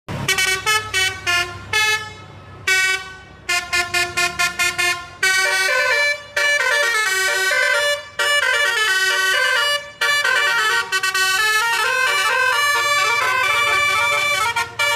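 Basuri multi-tone 'telolet' air horn on a tour bus playing a tune: a run of short toots for the first five seconds or so, then longer held notes stepping up and down in pitch.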